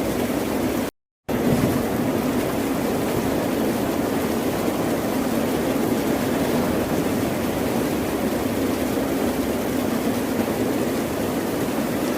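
Ocean surf as a steady, unbroken wash of waves, with no single breaker standing out. It cuts out to silence for a moment about a second in.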